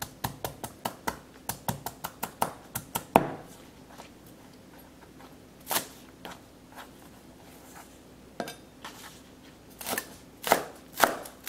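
Chef's knife chopping green onions on a plastic cutting board. A quick run of knocks, about four or five a second, fills the first three seconds; a single chop comes midway, and slower chops about two a second follow near the end.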